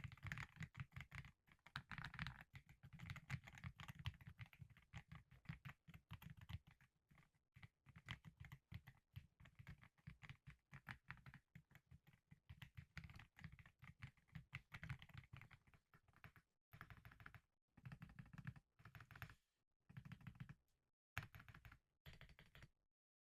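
Typing on a Keychron Q6 Ultra 8K full-size aluminium mechanical keyboard with Silk POM Red linear switches: rapid, steady keystrokes, breaking into short bursts with pauses between them in the last few seconds.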